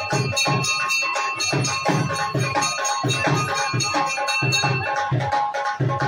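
Music with a steady drum beat, about two hits a second.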